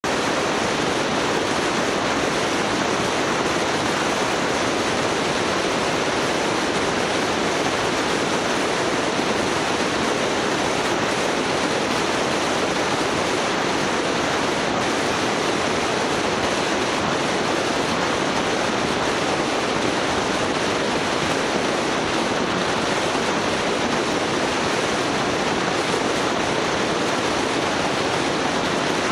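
Steady, even rushing noise with no change in level and no separate events.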